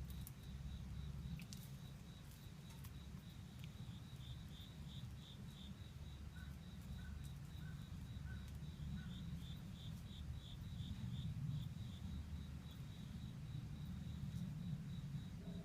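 Crickets chirping in a high, steady trill broken into rapid pulses, with a few short, fainter chirps in the middle and a low rumble underneath.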